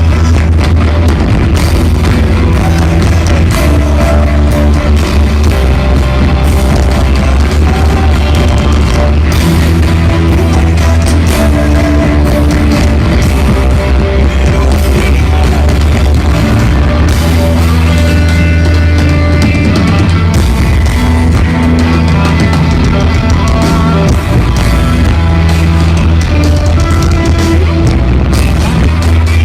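Rock band playing loud, with a heavy bass line, guitars and drums.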